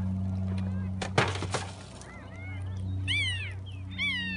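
Rubbish and plastic bags crackling and rustling as they are pulled about, loudest about a second in. From about two seconds in, a puppy cries with several short, high-pitched whimpering squeals that rise and fall.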